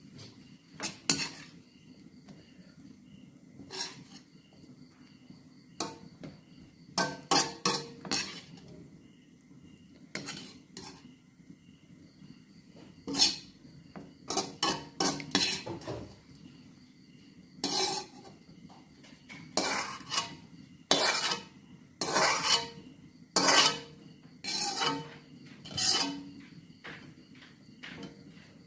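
Metal spatula scraping and clanking against an aluminium wok in irregular strokes as stir-fried squash is scooped out of it.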